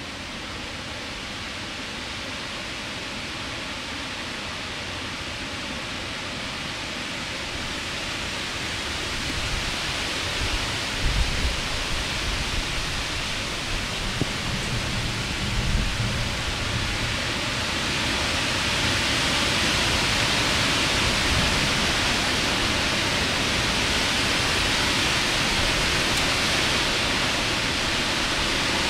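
Heavy rain and wind of a severe thunderstorm: a steady hiss that grows gradually louder as the downpour intensifies, with a few low rumbles about a third to halfway through.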